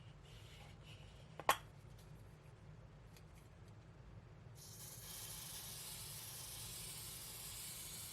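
A single soft click, then about halfway through a steady, quiet hiss begins and runs on for over three seconds.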